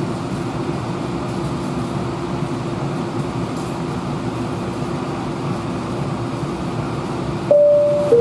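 Streetcar standing at a stop with its doors open: a steady hum from its onboard equipment with a low, level tone. Near the end a loud two-note door chime sounds, stepping down in pitch, the warning that the doors are about to close.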